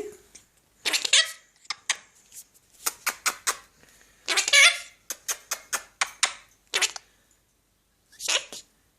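Quaker parrot making a string of short, raspy noises, about a dozen in irregular bursts, some in quick runs of three or four.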